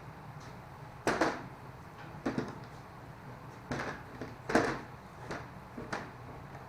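A bolted wooden frame being set in place and shifted, giving about six knocks and bumps, the loudest about a second in and midway, over a steady low hum.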